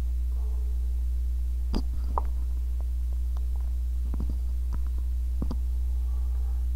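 Steady low electrical hum, with a few light taps and clicks of a cardboard model kit box being handled, about two seconds in, around four seconds in and again near five and a half seconds.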